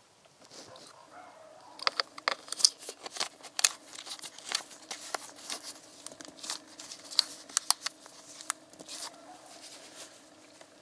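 Gloved hands handling a plastic oil bottle and screwing its plastic cap back on: a run of sharp clicks and crinkles that starts about two seconds in and thins out near the end, over a faint steady hum.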